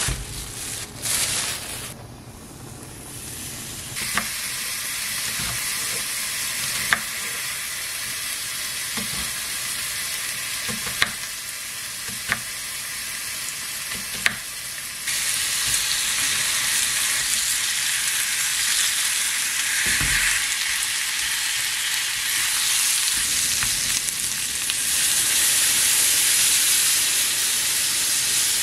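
Food sizzling and frying in a pan on a gas stove, louder from about halfway through. In the first half, several sharp knife strokes hit a wooden cutting board.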